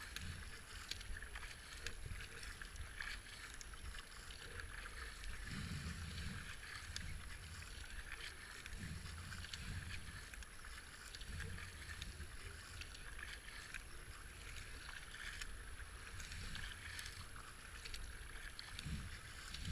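Racing kayak being paddled: a steady wash of water splashing along the hull, with faint irregular low thumps and small splashes from the paddle strokes.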